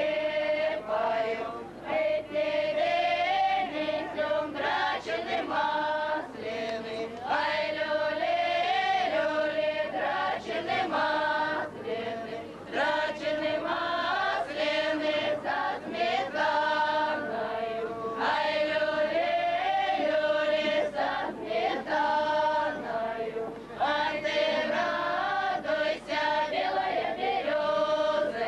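Choir of women's and girls' voices singing a Russian folk song together, phrase after phrase with brief breaks between them.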